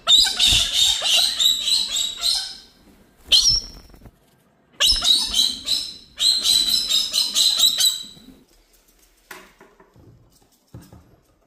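Galahs screeching: a bout of harsh, repeated screeches, one short screech, then a second bout, after which they fall quiet.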